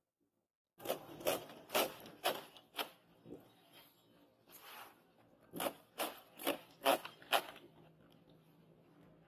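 A billhook blade, hand-forged from truck leaf-spring steel, slashing through the leaflets of a coconut palm frond. There are two runs of about five quick cuts, roughly two a second: the first starts about a second in, and the second comes just past the middle.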